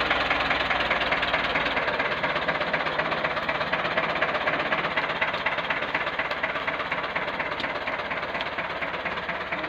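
Ford farm tractor engine running close by with a fast, even clatter as the tractor moves with its trailer hitched, easing off slightly near the end.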